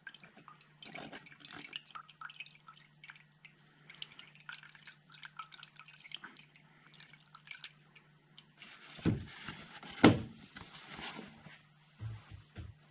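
Diesel fuel filter element being lifted out of its housing, diesel dripping off it with small handling clicks. Two louder sharp knocks come about nine and ten seconds in.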